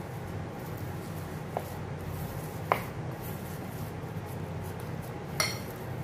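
Hands pressing down risen yeast dough in a glass bowl, with short sharp clinks against the glass bowl: one faint about a second and a half in, louder ones near three seconds and just before the end. A steady low hum underneath.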